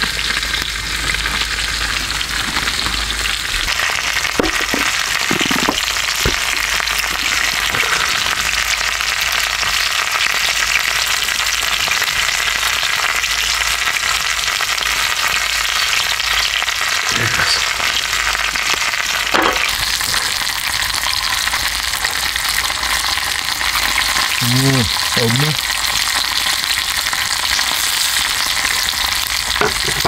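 Thick wagyu steak sizzling on a grill grate over a campfire: a steady frying hiss with a few sharp crackles.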